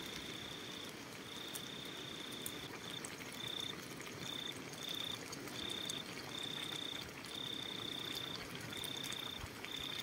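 A cricket trilling at one steady high pitch, in trills lasting from a fraction of a second to over a second with short gaps between them.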